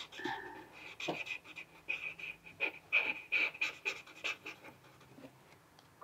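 Marker pen scribbling on paper in quick back-and-forth strokes, about three a second, each with a thin high squeak. The strokes stop about five seconds in.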